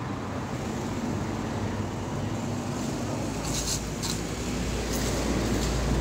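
Street traffic noise, with a heavy truck passing close by: its deep rumble builds from about halfway through and peaks near the end. A few faint short clicks sound over it.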